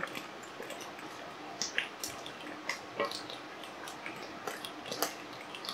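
Thick shiro stew simmering in a pot, with irregular soft bubble pops and plops over a low hiss. The stew has cooked down far enough that its oil is rising to the surface.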